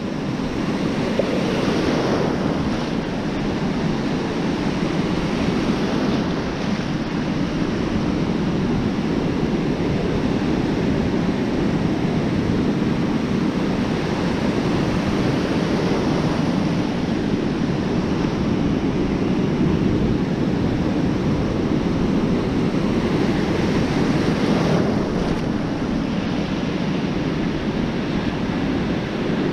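Ocean surf breaking and washing in, a steady rush that swells as waves break louder about two seconds in and again near twenty-five seconds. Wind buffets the microphone.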